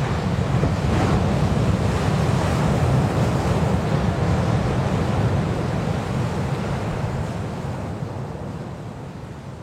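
Steady rushing noise with a heavy low rumble, fading out over the last few seconds.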